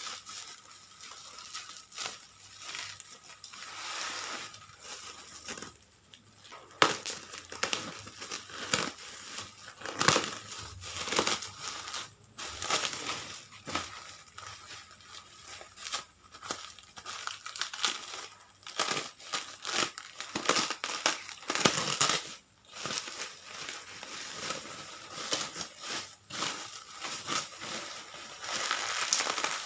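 Packaging being unwrapped by hand: irregular crinkling, crumpling and tearing that goes on with short pauses.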